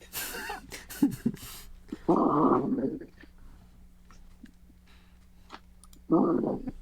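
A man snoring loudly, two harsh snores about four seconds apart, one near the middle and one near the end, with some brief hissing noise in the first second and a half.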